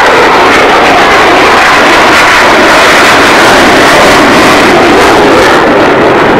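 Avro Vulcan bomber's four Olympus turbojets passing overhead in a banking display turn: loud, steady jet engine noise.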